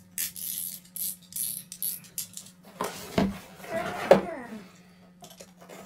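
Short clicks and scrapes from a snap-off utility knife and a cardboard shipping box being handled, with louder rubbing and scraping of the box about three to four seconds in as it is turned over on the table.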